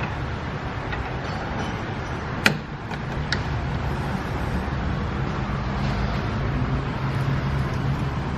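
Brake pads being pushed into a four-piston brake caliper, with a sharp metallic click about two and a half seconds in and a lighter one under a second later, over a steady low drone of workshop background noise.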